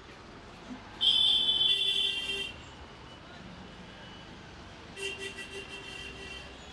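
A vehicle horn sounds one long blast of about a second and a half. A few seconds later a horn beeps again as a quick series of short pulses lasting about a second and a half.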